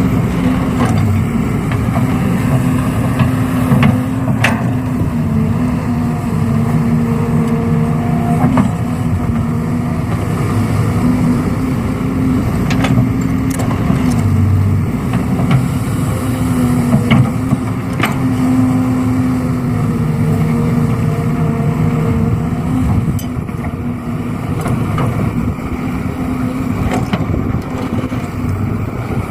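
An engine runs steadily, its pitch drifting up and down as the load changes, with a few sharp knocks and clanks scattered through.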